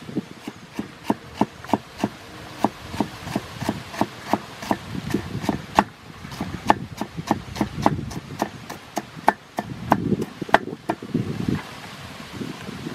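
Broad-bladed kitchen knife chopping onion on a wooden cutting board: a fast, even run of sharp knocks, about three a second, as the blade strikes the board. The chopping stops near the end.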